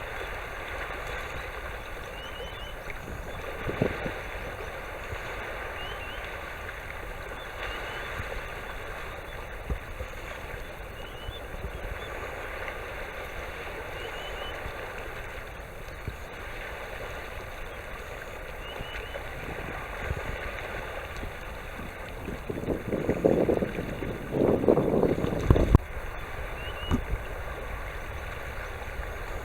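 Short, high two-note whistled calls of a sandpiper recur every few seconds over a steady wash of sea and wind. The uploader takes the caller for a grey-tailed tattler on northward migration. A louder rushing burst comes near the end.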